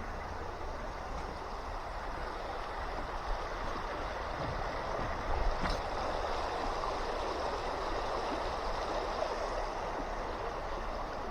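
River water running steadily over stones, getting a little louder past the middle, with a low rumble underneath.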